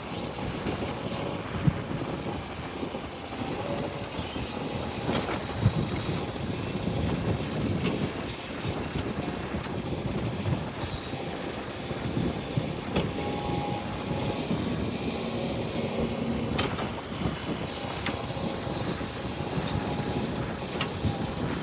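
Can-Am side-by-side utility vehicle driving over rough ground: a steady running din with constant rattling and small knocks, and wind buffeting the microphone.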